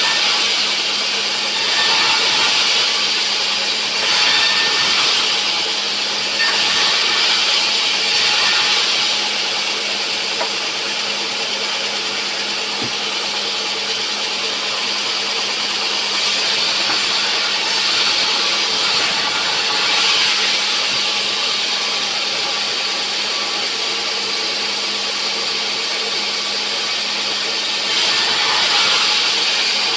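Sawmill saw running and cutting through a rubberwood log: a loud, steady, hissing machine noise over a constant hum, swelling and easing every couple of seconds during the first third, then steadier.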